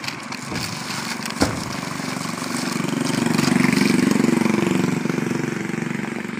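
A vehicle engine running, swelling louder about three seconds in and easing off again toward the end. A single sharp knock comes about a second and a half in.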